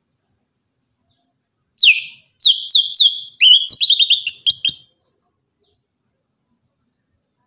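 Chestnut-capped thrush (anis kembang) singing one loud phrase of song about two seconds in: a long downward-slurred note, three shorter falling notes, then a quick run of short clipped notes, ending about three seconds later.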